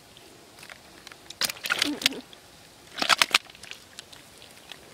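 Wet mud squelching and crackling as hands dig into a muddy hole and grip a fish, in two short bursts about a second and a half apart.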